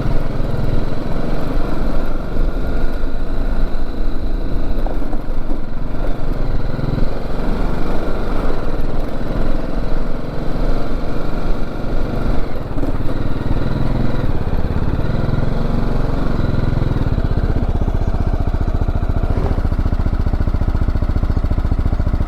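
Single-cylinder engine of a BMW G310GS motorcycle running as it is ridden slowly, its note uneven at first and settling into a steady, even run about seventeen seconds in.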